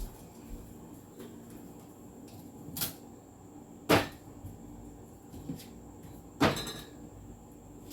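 Food containers and jars being handled and set down while a refrigerator is emptied: three sharp knocks and clatters, the loudest about four seconds in, with a few lighter taps and a faint steady hum underneath.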